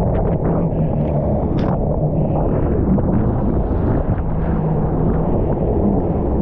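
Jet ski engine running steadily with a constant hum, under a dense low rush of noise.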